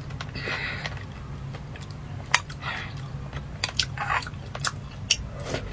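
Close-up eating sounds: wet chewing and slurping of soft jelly cubes in a sweet milky soup, with sharp clicks of a metal spoon against a glass bowl, over a low steady hum.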